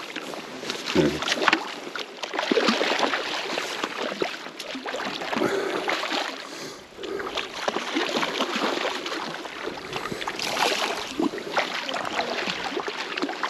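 Lake water splashing and sloshing close by, in irregular bursts, as a hooked cutthroat trout is brought in and grabbed by hand in the shallows.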